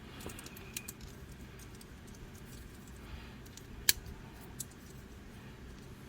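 Faint clicking and light rattling of the Mech Fans Toys MS28 Thunderbolt transforming robot toy's parts as they are folded and pressed into place, with one sharp click about four seconds in.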